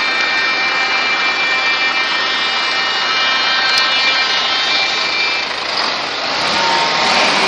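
Heavy tractor-unit trucks driving slowly past in a convoy, a steady loud mechanical drone with a pitched whine that fades about five and a half seconds in, followed by rougher engine and tyre noise as more trucks pass close.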